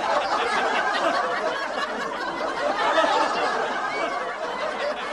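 A crowd laughing and chattering, with many voices at once and no single speaker, easing down near the end.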